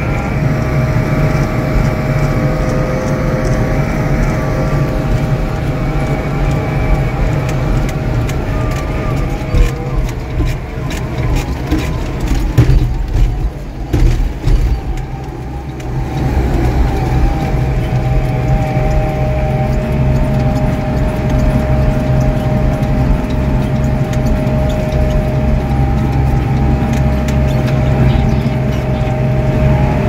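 White 145 tractor's diesel engine lugging at about 2,000 rpm under the load of a full grain wagon, heard from inside the cab as a steady drone with a whine. Roughly ten seconds in, several seconds of loud knocks and rattles break in.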